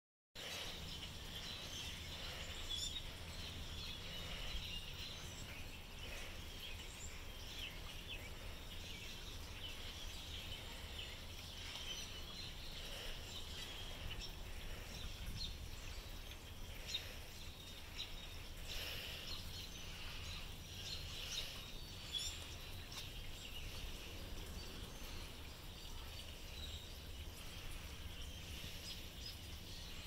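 A large flock of birds calling all at once, a continuous busy chatter of many short overlapping calls, over a steady low background rumble.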